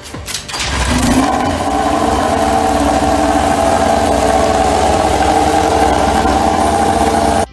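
Yamaha YZR-M1 MotoGP bike's inline-four engine starting about a second in, with a short rise in pitch, then running at a steady, loud high idle.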